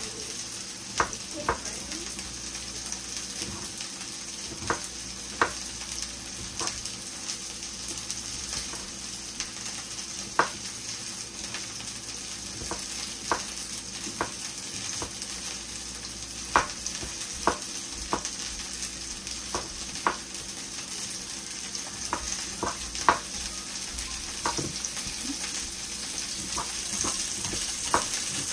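Sausages and onions frying in butter in a pan, a steady sizzle. A utensil stirring the food gives sharp, irregular clicks against the pan every second or so.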